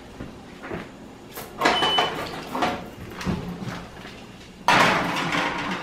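Gas range oven door opening and a metal sheet pan sliding onto the oven rack: clattering and scraping of metal on metal, with the loudest scrape starting near the end.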